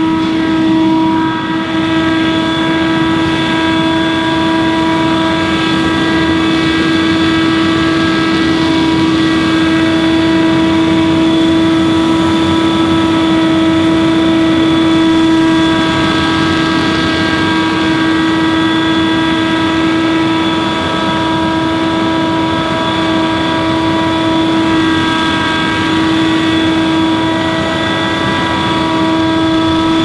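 Gas-engine stand-on leaf blower running steadily and loud, a constant whine over the engine and the rush of air.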